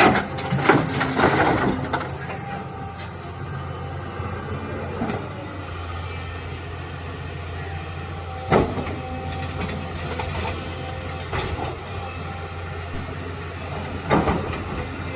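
Heavy excavator's diesel engine running steadily, with a loud clatter over the first couple of seconds and three sharp knocks later on, from stone and the steel bucket being worked.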